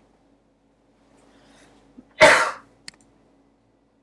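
A single short cough about two seconds in, followed by a mouse click.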